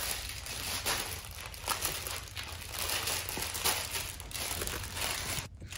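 Crinkle paper rustling inside a large plush crocodile dog toy as a dog mouths and paws at it, in an uneven run of crackly rustles.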